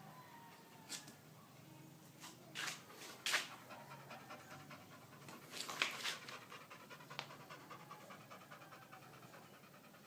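American Pit Bull Terrier panting, with several short sharp sounds over the first seven seconds, loudest a little over three seconds in.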